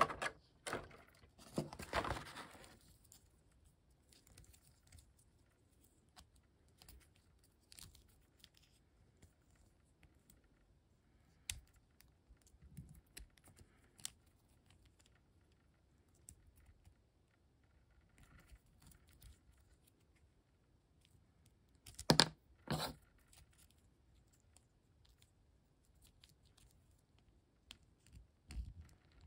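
Small plastic parts of a Transformers BotBots toy figure clicking as it is handled and folded, with the clear plastic blister tray rustling in the first couple of seconds. Sparse light clicks throughout, and two louder snaps about three-quarters of the way through.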